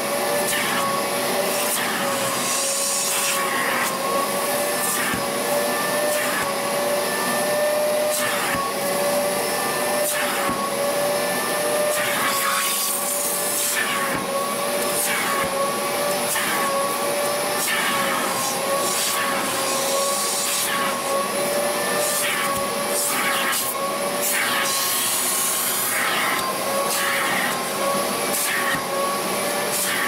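Upholstery extraction vacuum running with a steady motor whine, its slotted nozzle drawn in strokes across a fabric car seat to suck up the cleaning water and dirt. A rush of suction noise surges briefly with each stroke.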